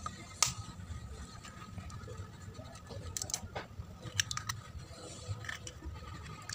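Knife blade rapping an eggshell once, sharply, about half a second in, then the cracked shell crackling with a few small clicks as it is pulled apart by hand over a ceramic bowl.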